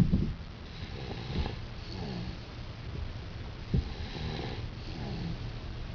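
Two sleeping boys snoring inside a car, slow breaths rising and falling every two seconds or so over the car's steady low rumble. Two short, louder sounds come at the very start and again about four seconds in.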